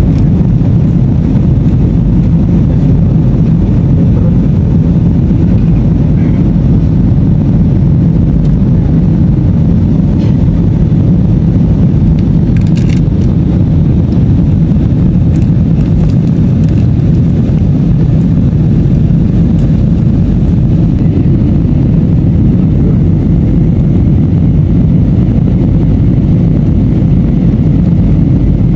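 Steady low rumble of a jet airliner's cabin noise during the descent to land, engine and airflow noise heard from inside the cabin. A few faint clicks come about halfway through.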